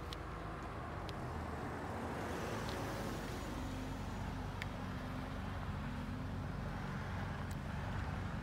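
Steady motor-vehicle noise: a low engine hum with a haze of road noise that grows slightly louder a couple of seconds in, and a few faint clicks.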